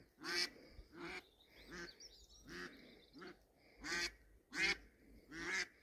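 Live decoy hen duck quacking, a series of about ten loud, evenly spaced quacks at roughly two a second, calling out to wild ducks.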